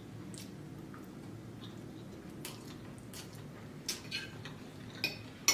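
Soft, scattered wet mouth clicks and squishes of someone chewing seafood linguine, with a sharper click near the end, over a low steady hum.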